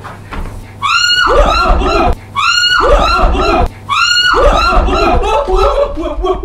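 A high shriek that drops sharply in pitch, heard three times in identical copies about a second and a half apart, then excited voices and laughter near the end.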